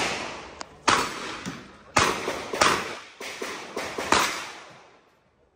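A string of revolver shots: three loud shots in the first three seconds, then a few fainter cracks ending about four seconds in, each echoing off the range walls before dying away.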